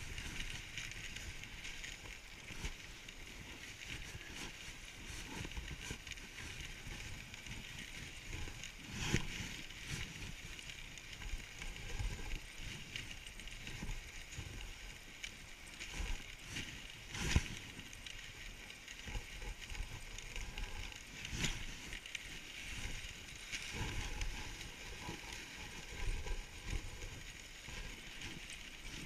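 Dog sled runners hissing steadily over packed snow, with the sled rattling and a few sharper knocks as it bumps along the trail.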